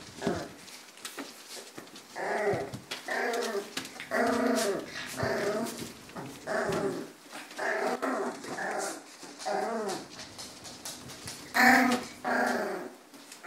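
Kerry blue terrier puppies growling as they play-fight: a run of short growls, roughly one a second, the loudest near the end.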